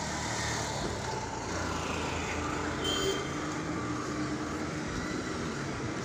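Road traffic: car and auto-rickshaw engines running along the street as a steady hum, with a short high tone about three seconds in.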